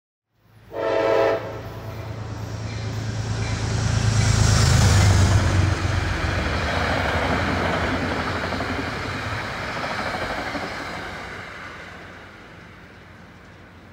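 Metro-North commuter train passing through the station: one short horn blast about a second in, then the rumble and rolling of the train going by. It is loudest around the middle and dies away near the end.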